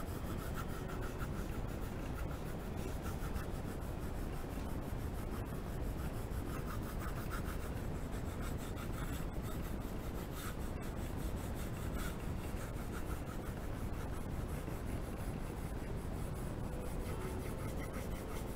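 Graphite pencil rubbing and scratching across paper in repeated strokes as lines are sketched, over a steady low hiss.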